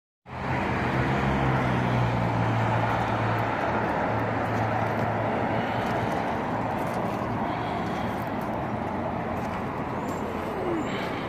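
A motor vehicle engine running steadily under an even rushing noise; its low hum weakens after about three and a half seconds.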